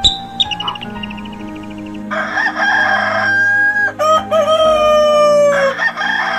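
Rooster crowing, starting about two seconds in: a long, drawn-out call whose last note falls, over background music.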